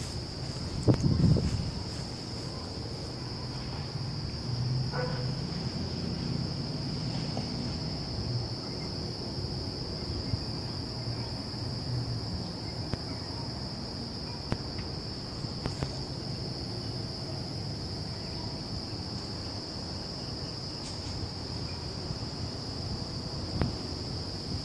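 Crickets chirping in a steady, unbroken high-pitched chorus. Under it a low rumble on the microphone, loudest about a second in.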